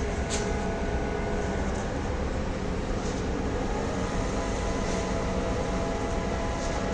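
Steady running of heavy machinery during the cargo discharge, a low even rumble with a few faint steady tones and a handful of faint clicks.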